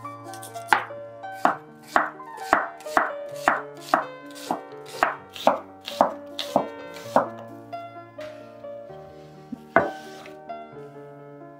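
Cleaver slicing an apple on a bamboo cutting board: about two sharp knocks a second as the blade hits the board, stopping after about seven seconds, then one louder knock near the end. Soft background music underneath.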